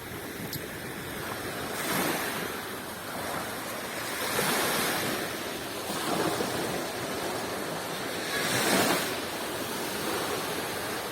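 Black Sea waves washing onto the beach, swelling and fading about four times, loudest around the middle and near the end, with wind on the microphone.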